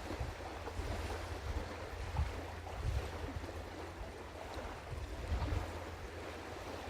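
Wind buffeting an outdoor microphone: an uneven, gusty low rumble over a steady rushing hiss.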